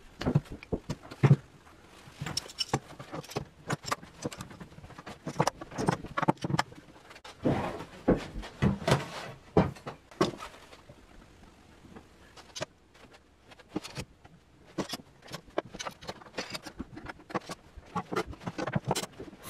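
Irregular knocks and clacks of a glue-up: softwood 2x6 pieces set down and shifted on a workbench, and metal bar clamps and F-clamps clattering as they are handled and tightened. The knocks thin out for a few seconds past the middle.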